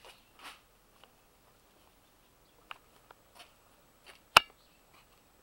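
Quiet room tone broken by a few faint taps and one sharp, loud click about four seconds in.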